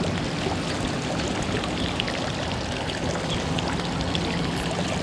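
Steady rush of water, like rain or running water, with scattered faint ticks of drops.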